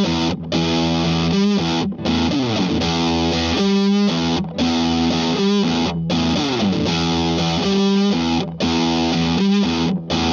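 Electric guitar heavily distorted through fuzz, playing a repeating riff. Each phrase starts with a downward slide, about every four seconds, and the sound cuts out sharply for a moment several times.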